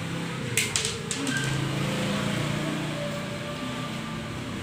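Steady low background hum, with a short cluster of sharp clicks a little over half a second in.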